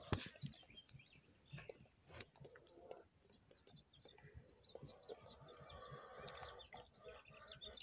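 Faint bird chirping: many short, high chirps in quick succession.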